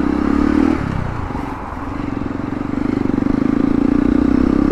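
Hero Impulse's single-cylinder engine running as the motorcycle rides on. The engine note drops about a second in, then builds up again.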